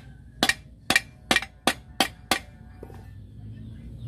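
A hammer striking rivets to fasten new lining onto a truck's steel brake shoe: six sharp metallic blows in quick succession, stopping about two and a half seconds in.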